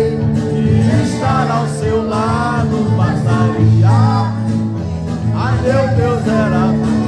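A male singer sings into a microphone with guitar accompaniment, amplified through a sound system. It is a steady, continuous live performance.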